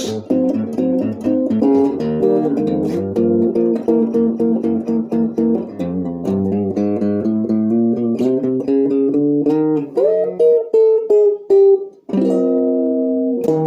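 1960 Guild T100 thinline archtop electric guitar on its neck pickup with the tone knob rolled down, playing jazz chords clean through a tube amp with no reverb, the treble rolled off. A note is bent up about ten seconds in, and a last chord rings near the end.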